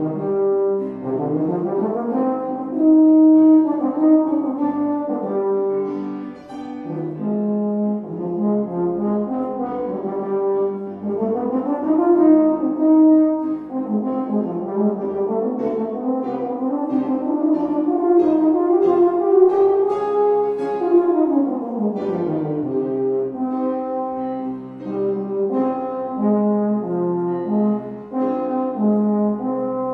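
Baritone horn playing a classical solo line of held notes and quick runs rising and falling, with grand piano accompaniment.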